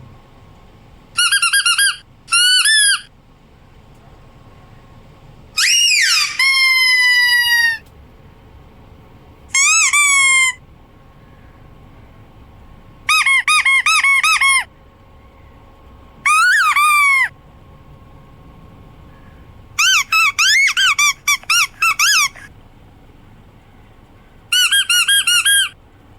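Rubber squeaky toy squeezed in short bursts of several quick squeaks each, about nine bursts with pauses of a second or two between them.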